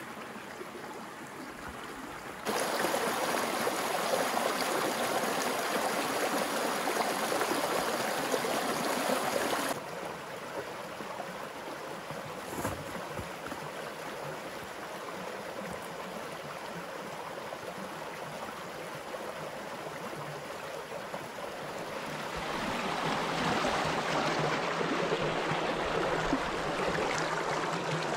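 Small rocky creek rushing and splashing over stones and little cascades. It is a steady wash of water noise that jumps louder about two seconds in, drops back about ten seconds in, and swells again in the last few seconds.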